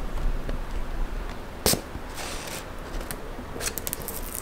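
Handling noise of a shrink-wrapped cardboard box turned in the hands, the plastic film rustling, with one sharp click less than halfway through and a few lighter clicks near the end.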